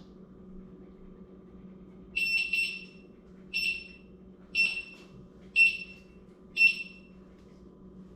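Begode A2 electric unicycle's buzzer beeping while its power button is held down: a quick pair of high-pitched beeps, then four single beeps about a second apart.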